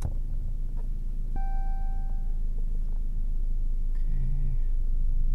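2015 Chrysler 200's engine idling with a steady low rumble. There is a sharp click at the start, and about a second and a half in, a single electronic chime beeps for about a second.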